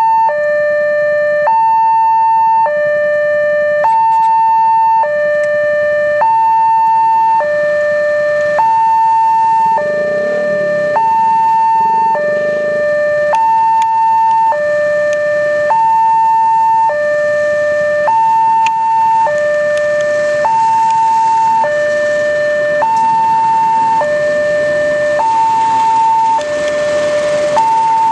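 Railway level-crossing warning alarm sounding its two-tone electronic signal, a higher and a lower tone alternating about once a second, the sign that a train is approaching the crossing. Near the end the noise of the passing train rises under it.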